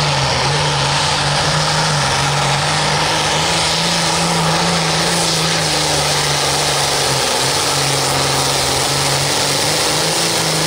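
Modified diesel pulling tractor running at full throttle as it drags the weight-transfer sled down the track. The engine holds a steady, high pitch that shifts only slightly.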